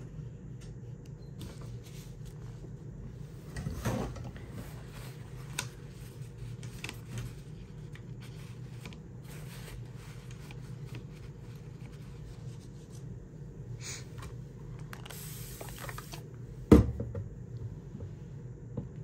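Quiet tabletop handling sounds from watercolor painting: faint rustles and light taps of a brush, paper towel and plastic paint palette, with a soft knock about four seconds in and one sharp knock near the end, over a steady low background hum.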